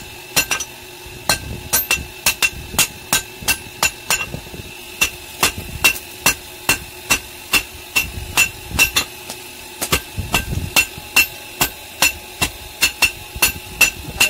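Hand hammer striking a red-hot steel bar on a steel-rail anvil, forging a cold chisel: a steady run of blows, about two to three a second with a few short pauses, each with a bright metallic ring.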